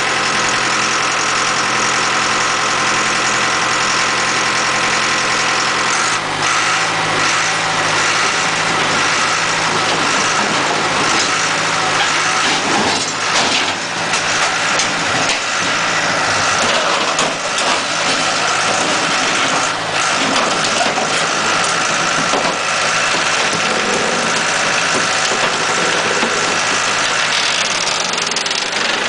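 Mobile scrap baler's engine running, its pitch stepping up about six seconds in as it takes load, with clanks and crunching of scrap steel being compressed in the baler.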